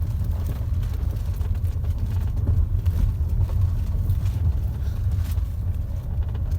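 Road noise inside the cabin of a 2021 Ford Territory driving over rough paving: a steady low rumble of tyres and suspension with only faint light ticks. No rear knocking is heard: the loose rear shock absorber rod has been fixed.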